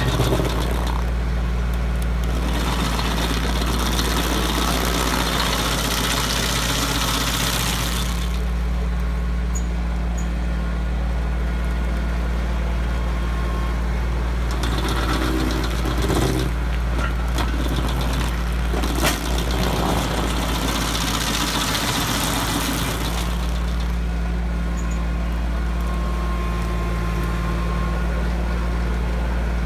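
A compact tractor's engine runs steadily at PTO speed, driving a WG24 PTO stump grinder whose 24-inch toothed flywheel cuts into a stump and the soil around it. Several spells of rushing, chattering grinding rise over the engine: a long one at the start, shorter ones through the middle and later. About two-thirds of the way through there is a single sharp knock.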